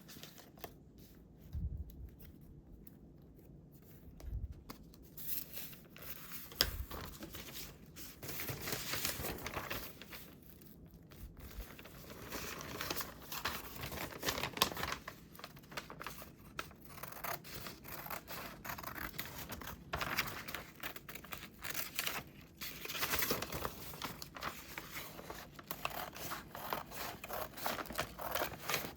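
Scissors cutting paper in runs of quick snips, with paper rustling in between. The first few seconds hold only a few soft taps before the cutting starts.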